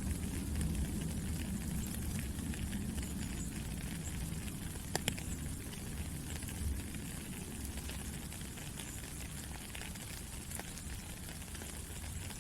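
Steady rain falling, a dense hiss over a low rumble, with scattered individual drops ticking and one sharper tap about five seconds in.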